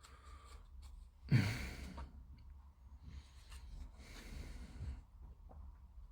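A man exhales in a loud sigh about a second in, followed by softer breathing, with a few faint small clicks of plastic parts being handled.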